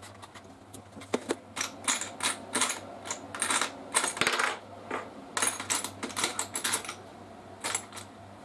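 Hand tools and small metal parts clinking together: a string of irregular sharp clicks and short rattles.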